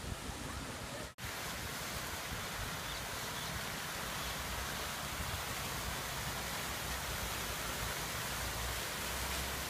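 Steady rushing hiss of fountain water jets spraying and splashing into a pond, with a brief cut-out about a second in.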